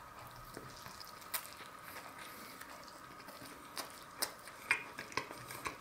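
A person chewing a bite of a cheesesteak made of thinly sliced prime rib on a soft bun: faint wet mouth clicks and smacks, with a cluster of them from about four seconds in, over a faint steady tone.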